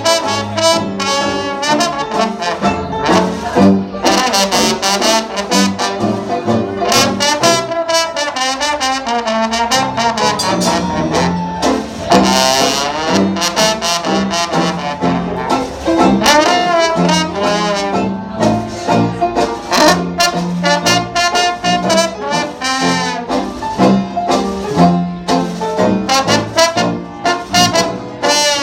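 Live traditional jazz band playing, with a trombone leading close to the microphone over the band.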